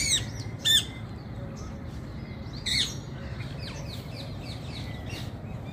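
Rose-ringed parakeets (green parrots) squawking: three loud, harsh calls, two close together at the start and one a little before the middle, over a run of fainter, high chirping calls.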